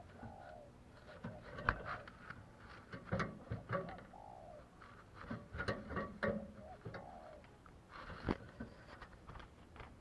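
Spotted dove cooing softly a few times, short arched notes, among sharp clicks and knocks that are the loudest sounds.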